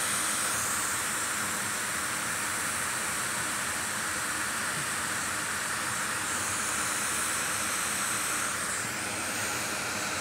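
Hot air rework station blowing a steady hiss of hot air onto a flux-covered MacBook logic board while a small component is heated for removal. The tone of the hiss shifts slightly a couple of times.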